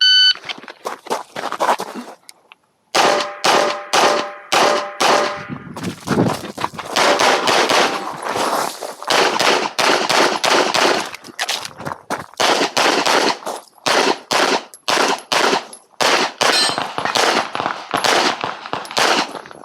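A shot timer beeps, then a handgun fires rapid strings of shots through a practical-shooting stage, with a short pause about two seconds in. Steel targets ring as hits land.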